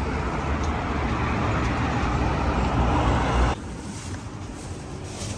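Engine and road noise of a moving car, a steady rumble, cutting off abruptly about three and a half seconds in to a much quieter background with a few faint clicks.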